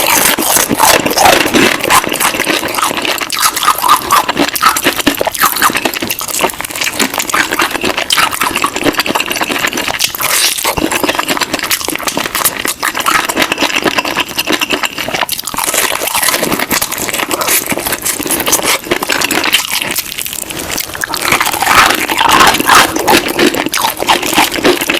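Close-miked crunching and chewing of crispy fried chicken: dense, irregular crackles as the batter breaks between the teeth.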